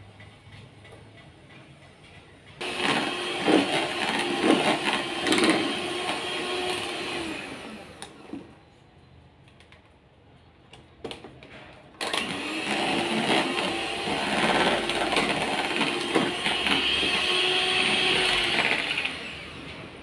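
Electric hand mixer beating cake batter in a bowl. It runs in two stretches of several seconds, with its motor pitch wavering as the beaters work the batter, and stops for about four seconds between them.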